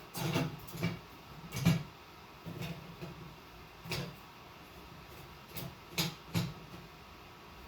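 Irregular knocks and clicks of hard objects being handled, about a dozen spread over several seconds, the loudest a little under two seconds in.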